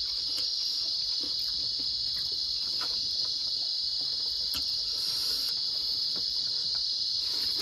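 Steady, high-pitched chirring of night insects, unbroken, with a few faint clicks and smacks of people eating rice and curry by hand.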